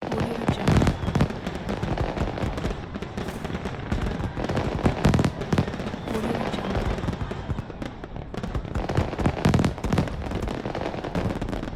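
Fireworks display: shells bursting with deep booms and a constant crackle, the heaviest bangs about a second in, around five seconds and near ten seconds. A crowd's voices can be heard underneath.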